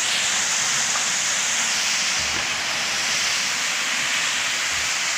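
High-pressure jet of cold water from a burst underground water main shooting up into the air and coming down as spray: a steady, loud hiss.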